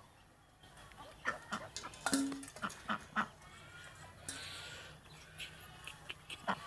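White domestic duck quacking in a series of short, loud calls, most of them in the first half, with a few fainter ones near the end.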